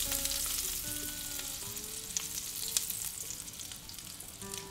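Seared scallops and butter sizzling in a frying pan whose burner has just been switched off, the sizzle slowly dying down, with a few light clicks. Soft background music plays with it.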